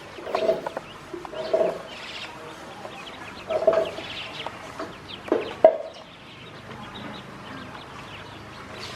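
Poultry calling with short, low, clucking calls, four or five times over the first six seconds, with faint high chirps throughout. Two sharp knocks come close together about five and a half seconds in.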